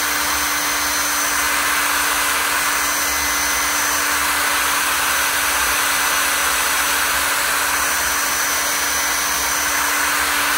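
Handheld hair dryer running at a constant speed: a steady rush of air with a low motor hum and a faint high whine underneath.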